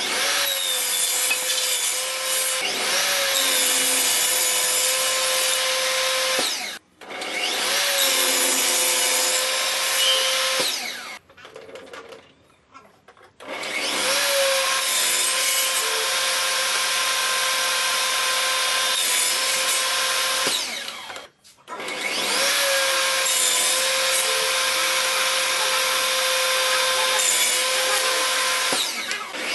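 Table saw running with a steady whine while crosscutting a wooden board into short pieces, the pitch wavering briefly as each cut begins. The sound breaks off a few times, for about two seconds just before the middle.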